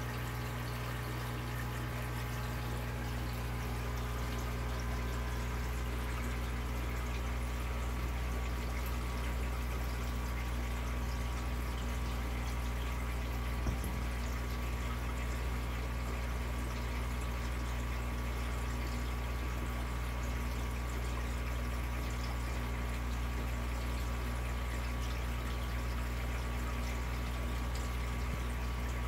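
Aquarium filter running: water steadily pouring and trickling into the tank over a low, steady hum from the pump. One faint click about halfway through.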